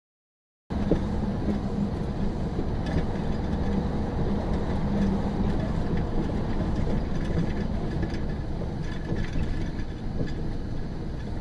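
Steady low rumble of a moving vehicle, starting abruptly just under a second in, with a few faint ticks over it.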